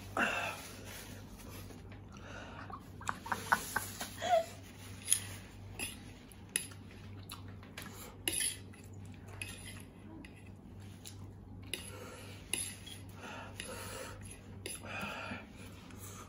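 A fork clinking and scraping on a plate as noodles are eaten, in scattered short clicks, with a quick run of sharp clinks about three to four and a half seconds in.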